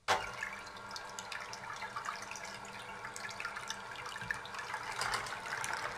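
Electric hand mixer running at low speed. It starts abruptly, its motor whirring steadily while the twin beaters whisk raw eggs in a stainless steel pot, the liquid sloshing with small ticks against the metal.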